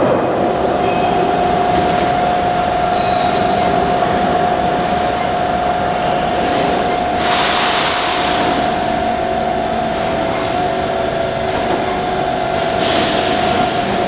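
G5 automatic turntable pallet wrapper running: a steady motor-and-drive hum with a constant mid-pitched whine. A hiss comes in about seven seconds in and again near the end.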